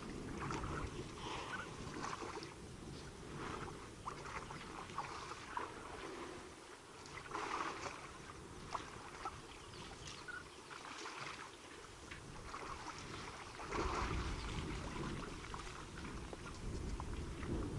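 African elephants drinking at a waterhole: irregular splashes and slurps of water as trunks draw it up and squirt it into mouths. A low noisy rumble underneath grows louder near the end.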